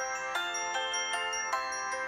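Background music: a bright melody of bell-like struck notes, about five notes a second, each ringing briefly.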